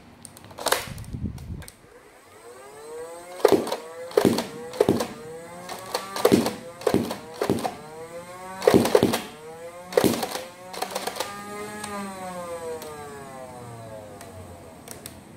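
Battery-powered flywheel Nerf blaster: the motor whines as it spins up, then fires a rapid series of foam darts, each a sharp snap. The whine falls away near the end as the flywheels spin down.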